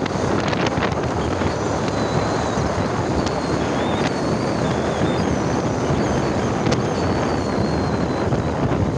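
Wind buffeting the microphone on a moving motorcycle, over the steady rush of its engine and the road.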